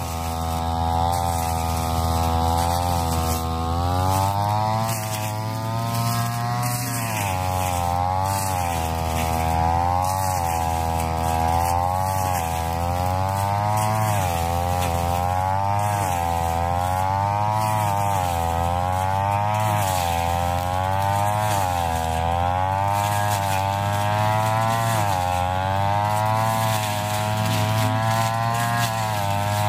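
RYU backpack brush cutter engine running at high speed while its blade cuts tall, thick grass. The engine pitch dips and recovers about every two seconds as the blade takes each swath and comes free.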